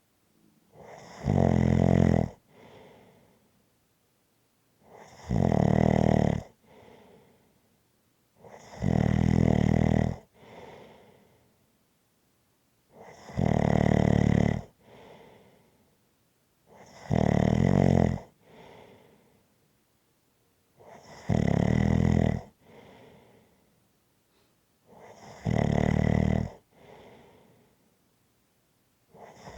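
Steady snoring: a loud snore about every four seconds, eight in all, each lasting a little over a second and followed by a quieter breath.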